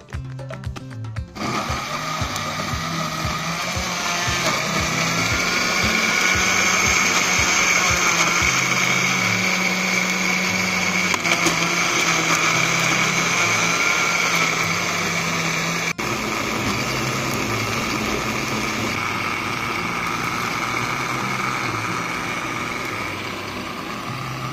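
Panasonic countertop blender starting about a second in and then running steadily at full speed, blending green chillies and garlic into a smooth sauce.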